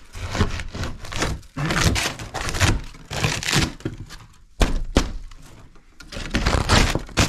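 Water-soaked, rotten subfloor wood and debris being pulled out by hand from under a wall: repeated wooden knocks, scraping and cracking. A sharp thunk comes about four and a half seconds in, and another near the end.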